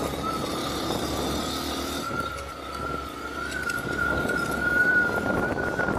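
Bajaj Pulsar 150 motorcycle riding along with its single-cylinder engine running and wind rushing over the microphone, under a steady high whine that rises slightly about halfway through. It grows louder in the last two seconds.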